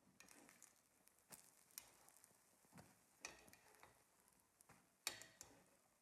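Faint, scattered clicks and light knocks of kitchenware being handled, a handful of them, the loudest about five seconds in.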